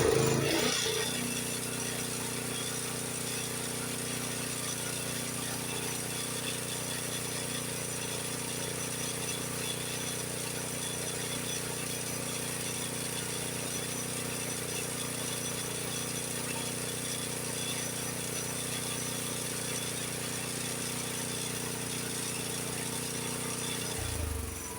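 Honda HS724 snowblower's single-cylinder engine revving up sharply as the throttle is pushed to fast, then running steadily at high speed. The fast-throttle speed is being checked and set at about 3,600 rpm.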